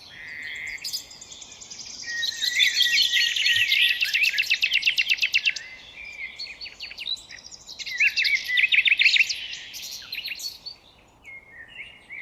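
Several songbirds singing over each other in rapid trills and chirps, busiest in the first half and again in a second burst past the middle, then thinning out near the end.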